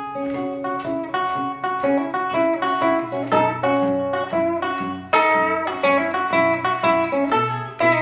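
Blues guitar played solo in an instrumental break: a quick run of picked single notes over low, sustained bass notes, with no singing.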